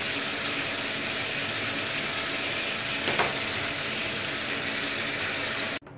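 Shower spray running onto a plastic motorcycle airbox in a bathtub as it is washed out: a steady hiss of water that stops abruptly near the end.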